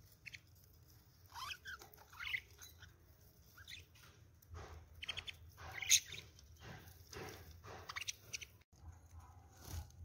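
Budgerigars give a few short chirps, then a run of scratchy taps and scrapes as a budgie pecks and gnaws at the rim of a clay nest pot, loudest about six seconds in.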